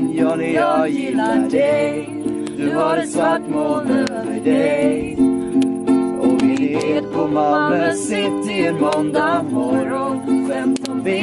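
Live acoustic music: a strummed string instrument holding chords, with a voice singing a melody over it.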